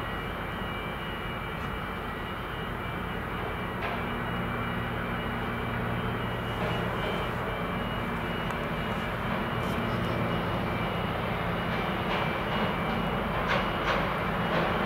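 Steady low mechanical drone from the ro-pax ferry Mecklenburg-Vorpommern's machinery as it lies at the berth, with a steady hum and a few faint clanks near the end.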